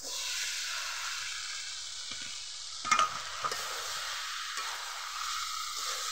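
Sizzling in a hot wok as steamed potato and giant taro (maan kochu) pieces are tipped into frying spice paste and stirred with a metal spatula. The sizzle starts suddenly, and a sharp knock comes about three seconds in.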